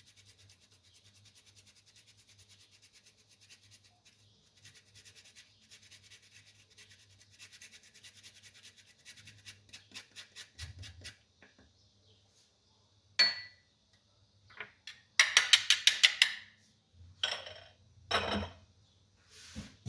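Fresh ginger being grated by hand on a grater: a long, fast, even run of faint scrapes. Near the end come a sharp clink and louder, quicker bursts of scraping and knocking.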